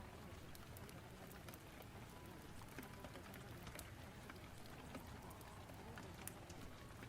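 Faint rain storm and fireplace ambience: a steady hiss of rain with scattered sharp crackles and ticks.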